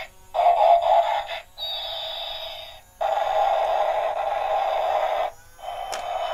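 Battery-powered toy airplane's electronic sound effects through its small speaker: blasts of jet-like hiss that stop and start, one carrying a falling whistle, then a sharp click near the end.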